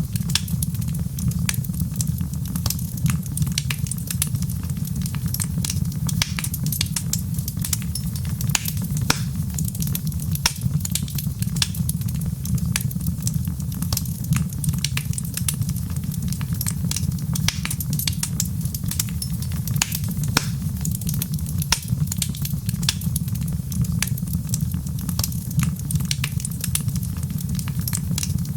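Wood fire crackling: a steady low rumble under many sharp, irregular pops and snaps.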